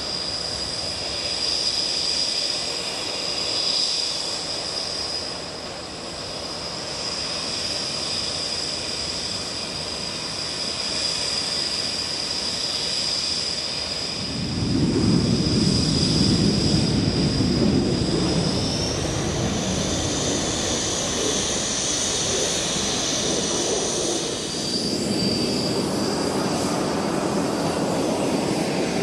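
Aircraft engines with a steady high whine. About halfway through, a deep rumble comes in and the sound grows loudest for a few seconds, and shortly after the whine climbs higher in pitch, as power rises for departure.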